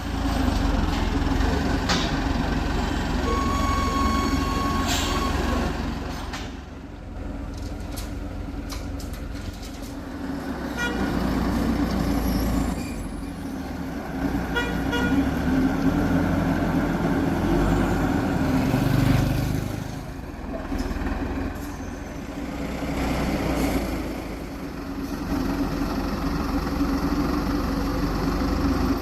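Heavy construction excavator's diesel engine running, its level rising and falling as the machine works, with a brief steady tone about three seconds in.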